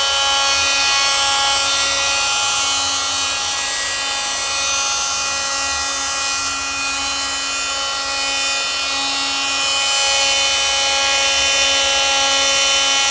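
Handheld oscillating multi-tool with a triangular sanding pad running against the painted roof edge of a VW bus, lightly scuff-sanding the old paint for primer. A steady buzzing whine that eases slightly midway.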